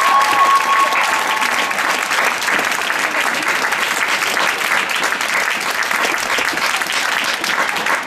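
Audience applauding, a steady dense clapping, with a held high tone over the first second or two.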